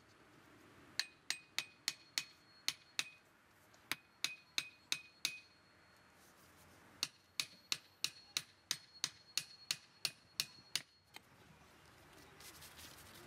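Hammer blows, each ringing briefly, in three runs of quick strokes at about three a second, with short pauses between the runs.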